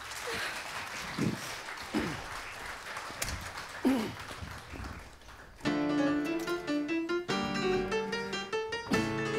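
Audience applause for a few seconds, then a piano with the band starts the introduction to the next song a little over halfway in.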